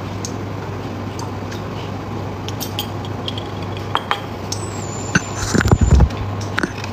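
Kitchenware clinking: a glass jar and utensils knocking against a pan, with scattered light clicks and a cluster of louder knocks and clatter about five and a half seconds in. A steady low hum from the induction hob runs underneath.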